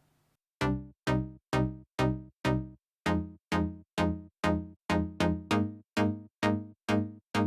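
Synthesizer pluck patch in NI Massive playing a run of short notes, about two a second, each bright at the attack and quickly dulling and dying away. The pluck comes from the filter envelope: fast attack, short decay and sustain pulled right down, so the filter snaps open on each note and closes at once.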